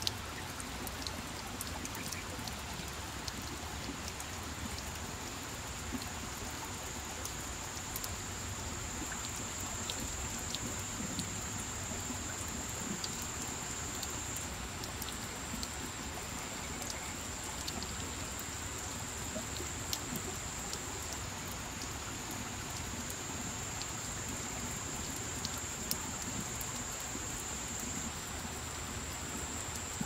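Water drops falling on wet leaves and rock: a steady patter with scattered sharp individual drips, over a steady high-pitched whine.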